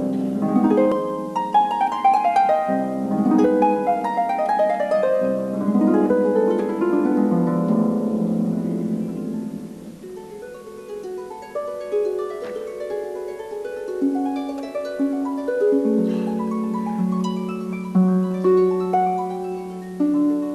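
Concert harp played solo: flowing runs and arpeggios of plucked notes, dropping softer about halfway through into slower, sparser notes.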